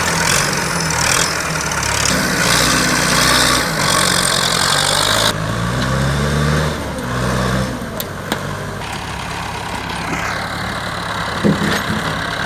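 Massey Ferguson 285 tractor engine running and revving as it works, its pitch rising and falling. About five seconds in the sound changes abruptly to a quieter engine-and-machinery noise with a few sharp clicks.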